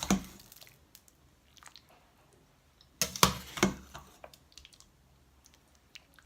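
Serving utensils knocking and scraping against a pot and plate as soup is dished out: a clatter at the start, another about three seconds in, and light ticks in between.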